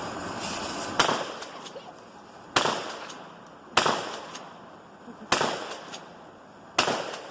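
Mossberg 500 pump-action shotgun firing game loads: five shots about a second and a half apart, each trailing off in a short echo.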